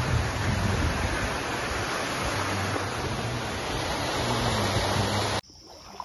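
Steady rush of fast-flowing stream water. It cuts off abruptly near the end, leaving a much quieter background.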